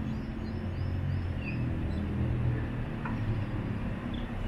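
Proton X70's aftermarket power tailgate struts running, a steady low motor hum as the tailgate moves after its button is pressed.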